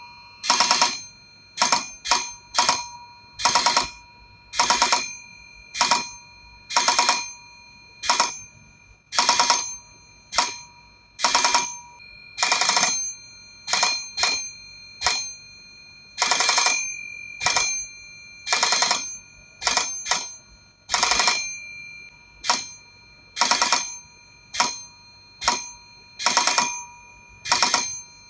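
The electric bell of a replica 1895 Popov coherer radio receiver ringing in bursts as spark-transmitter signals arrive, its hammer rattling against the metal gong. One or two strikes make a dot and a longer run of strikes makes a dash, so the short and long rings spell out Morse code.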